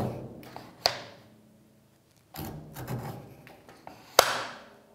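Wood knocking and scraping against the mitre trimmer as a wooden piece is handled and set back in place. There is a sharp knock about a second in, a stretch of scraping and shuffling, and a louder knock near the end.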